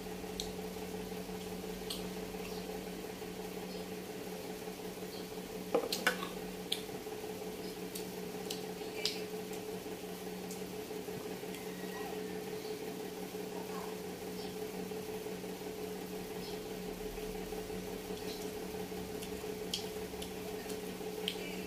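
Eating sounds: wet chewing and smacking while eating with the hands, with scattered small clicks, the loudest a short cluster about six seconds in. A steady hum runs underneath.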